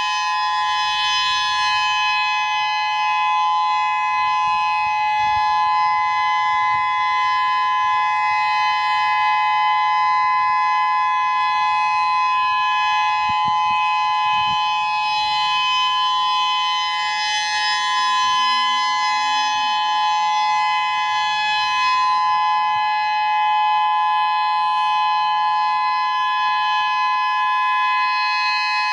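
Whelen 3016 electronic outdoor warning siren sounding its steady alert signal: a loud, unbroken two-note tone held at a constant pitch, the 3-minute alert of a monthly siren test.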